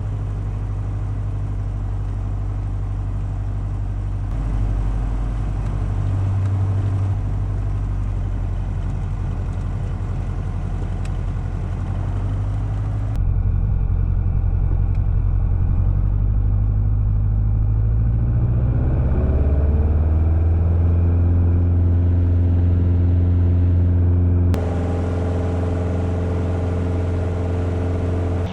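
Cessna 177RG Cardinal's fuel-injected four-cylinder Lycoming engine and propeller running steadily. It rises in pitch a little past the middle as power comes up for the takeoff, then holds at a higher, louder drone. The sound changes abruptly twice.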